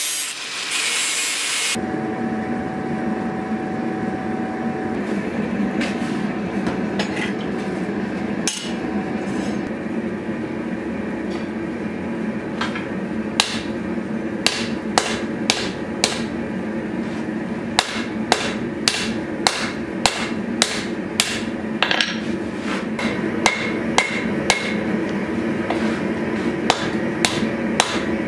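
An angle grinder cutting steel plate for a second or two, then hand-hammer blows on red-hot steel on an anvil over a steady hum. The strikes come sparsely at first, then in a steady run of about two a second from about halfway in.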